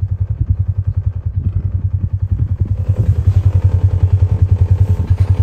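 Side-by-side utility vehicle's engine running with a steady, rapidly pulsing low note, growing louder a little past halfway.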